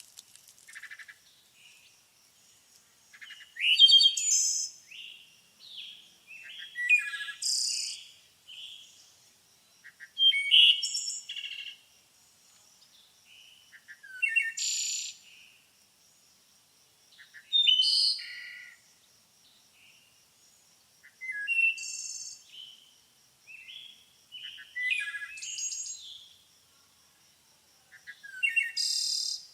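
A bird singing short, varied phrases of chirps and quick glides, one about every three to four seconds, over a faint steady high-pitched tone.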